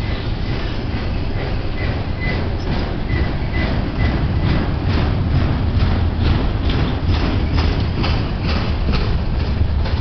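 Double-stack intermodal well cars of a BNSF freight train rolling slowly past as the train brakes toward a stop: a steady low rumble with wheels clicking over rail joints about three times a second, and a faint high squeal in the first few seconds.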